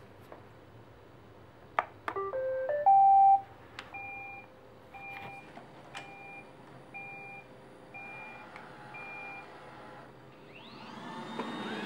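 iRobot Roomba 880 robot vacuum starting a cleaning run: a click, then its rising electronic start-up tune ending on a loud held note, then short beeps about once a second, and near the end its vacuum motor spinning up with a rising whine.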